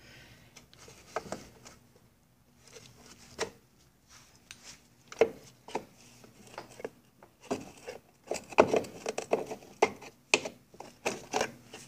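Irregular clicks, taps and scrapes of a tool prying metal spring clips off their tabs inside a Johnson 9.5 HP outboard's lower cowl. The clicks are sparse at first and come thicker in the second half.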